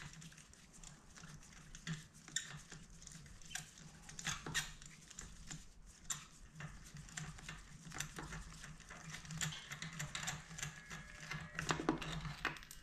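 Faint, irregular small clicks, taps and scrapes of hand tools working down in a motorcycle engine as a spark plug is loosened and drawn out with a spark plug socket, over a low steady hum.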